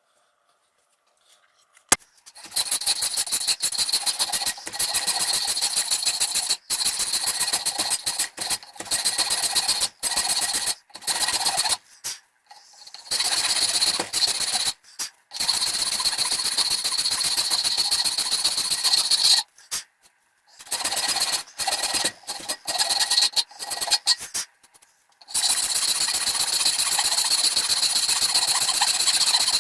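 Power tool running against oak while shaping the blank for new handle scales, with a steady high whine over the grinding noise. It starts about two seconds in and comes in stretches of a few seconds with short breaks.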